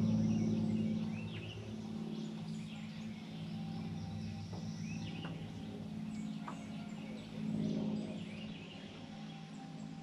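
Birds chirping in short calls over a steady low droning hum that swells near the start and again about eight seconds in.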